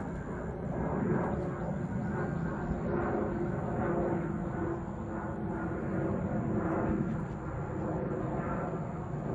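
Fighter jet flying overhead at an air show, its jet engines making a steady rumble.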